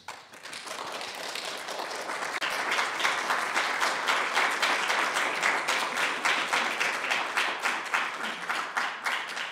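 Audience applauding, the clapping building up over the first couple of seconds and starting to thin out near the end.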